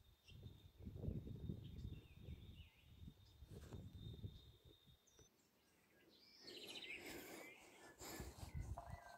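Faint rural ambience: birds calling in the second half, over a thin steady high insect tone in the first half and low rumbles.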